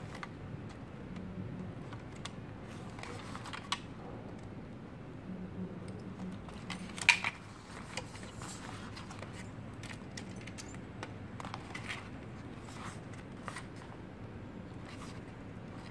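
Scattered small clicks and taps of a plastic head-unit frame, circuit board and needle-nose pliers being handled during reassembly, with one sharper click about seven seconds in. A steady low hum runs underneath.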